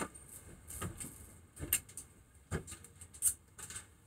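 Scattered light clicks and taps, about six over four seconds, with faint scraping between them, as metal brake parts and hand tools are handled on a workbench.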